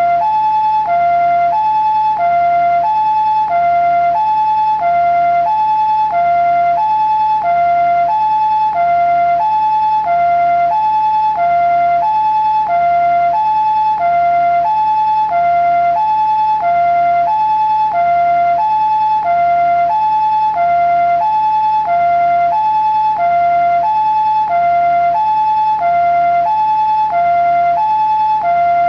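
Japanese ambulance siren sounding its two-tone hi-lo "pii-poo" call, a higher and a lower tone alternating evenly at a bit more than one cycle a second, steady in pitch and loudness throughout.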